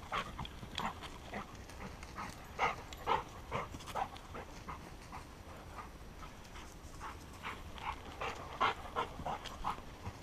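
Panting and quick footsteps crunching through dry leaves and pine needles, coming as short, irregular strokes a few times a second.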